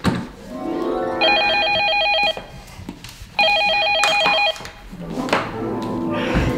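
Telephone ringing twice, each ring a fast trill lasting about a second.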